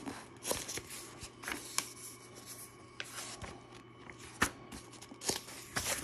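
Pages of a printed service manual being leafed through by hand: paper rustling with several sharp page flicks, the loudest about four and a half seconds in.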